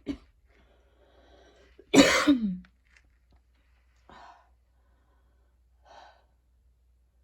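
A woman's single loud cough about two seconds in, its voiced end falling in pitch, part of a painful, choking coughing fit. Two short, faint breaths follow later.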